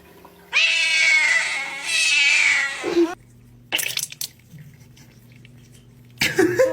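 A cat giving one long, wavering yowl lasting about two and a half seconds, followed by a few short clicks.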